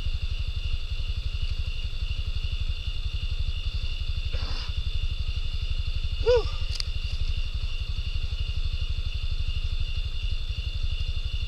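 An idling engine with a steady, low, evenly pulsing thrum, under a steady high-pitched drone. A brief voice-like sound rises and falls about six seconds in.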